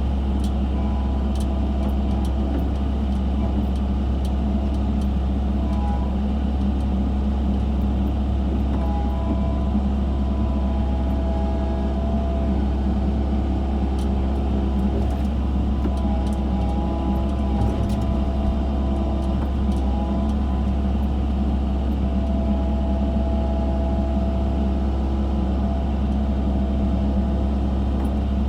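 Excavator's diesel engine running at a steady, even pitch, with a few faint clicks.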